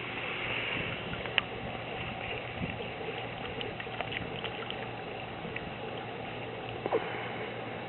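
Duck feeding, its bill dabbling and slurping wet food or water, with scattered small clicks. A sharper click comes about a second and a half in, and another about seven seconds in.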